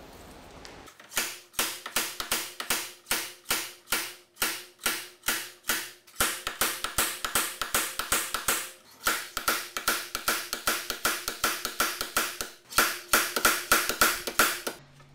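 Slide hammer on a hub puller striking again and again, about three to four metallic clanks a second, each ringing briefly, to pull a stuck front wheel hub bearing straight out. The footage is fast-forwarded, so the blows come quickly. They stop just before the end.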